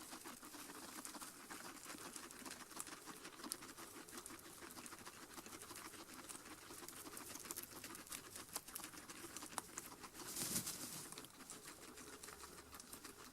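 Guinea pigs rustling in loose hay: faint, quick crackling and ticking, with a louder rustle about ten seconds in.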